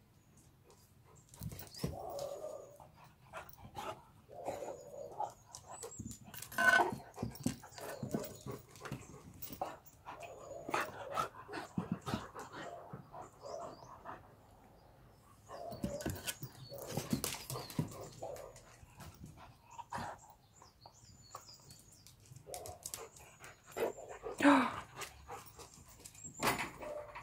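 Small black-and-tan dog barking and whimpering in play, in irregular short bursts that are loudest about a quarter of the way in and again near the end, with scattered sharp knocks between them.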